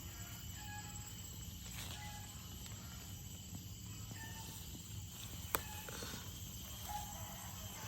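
Faint short bird calls, chickens among them, over a steady low hum, with one sharp click about five and a half seconds in.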